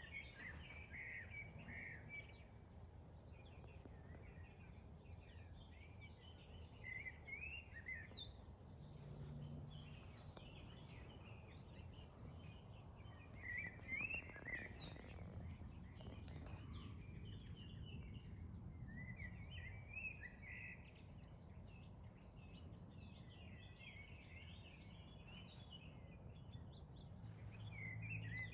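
Birds chirping and singing throughout in a series of short, busy phrases, faint over a low steady background noise.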